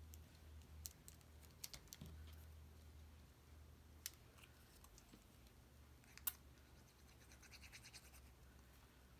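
Faint handling of cardstock pieces: scattered light ticks and scratches as small paper leaves are moved and pressed into place on a card frame. One sharper click comes a little after six seconds, and a short run of fast, soft scratching follows before the end, over a low steady hum.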